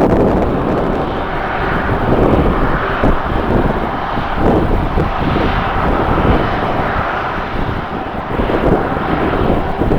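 Jet airliner engines running loud and steady, with gusty wind buffeting the microphone.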